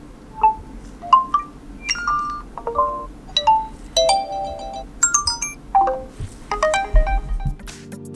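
Realme C31 smartphone playing its notification tones one after another through its speaker: short chimes and beeps of a few notes each, a new tone starting about every second.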